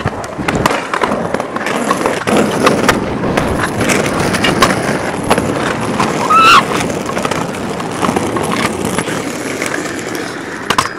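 Kick scooter wheels rolling over rough, cracked concrete: a steady grinding rumble broken by frequent sharp clicks as the small hard wheels cross joints and cracks. A brief rising squeak comes about six and a half seconds in, and a few sharper clacks near the end.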